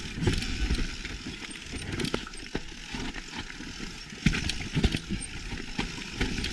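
Mountain bike descending a rough, rocky trail: tyres on dirt and rock under a steady rush of noise, with frequent irregular knocks and rattles from the bike as it hits roots and rocks.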